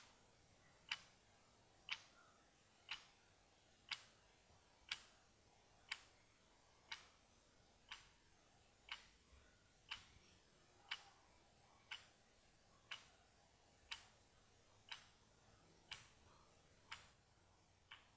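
A clock ticking faintly and evenly, one tick a second.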